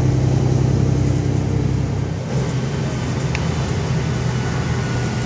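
Loud Cummins diesel engine of a VMZ-4252 city bus, heard from inside the passenger cabin, running steadily. About two seconds in, its note drops back a little and then carries on.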